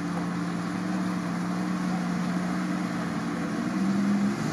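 Toyota 4Runner's engine pulling steadily at low speed through a muddy water pit, rising in pitch about four seconds in as the throttle is opened, with water splashing around the wheels.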